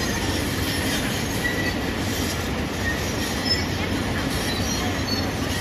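Hyundai crawler excavator travelling on its steel tracks: a steady mechanical rumble of engine and track running gear, with short high squeaks now and then.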